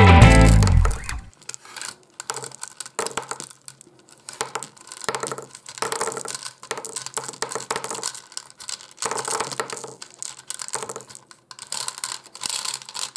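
Hands handling small toys and wrappers: irregular crinkling, tapping and small plastic clicks.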